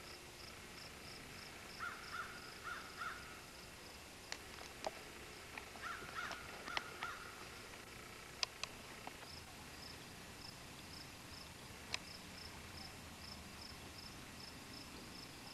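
Faint evening outdoor ambience: an insect chirping steadily at about three chirps a second, a bird giving short runs of calls about two and six seconds in, and a few sharp clicks.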